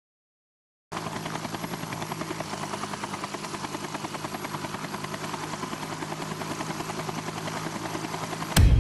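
A steady machine drone with a fast, regular pulsing beat starts abruptly about a second in. Near the end a sharp click comes, and a much louder deep rumble cuts in.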